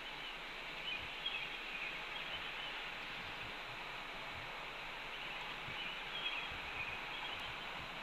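Steady outdoor background noise at a nest-cam microphone, with faint high bird chirps about a second in and again around six seconds.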